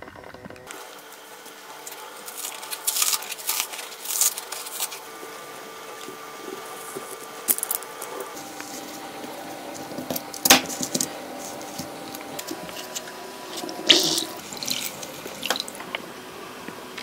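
Scattered short scrapes, clicks and taps of small hand tools being handled, steel scissor blades among them, over faint steady tones.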